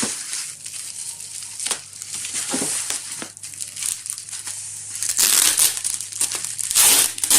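Camera packaging being handled and pulled off: irregular crinkling and crumpling, louder in two bursts past the halfway point.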